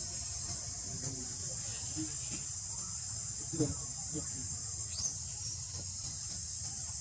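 Steady high-pitched drone of insects, with a few faint short calls in the middle and a brief rising squeak about five seconds in.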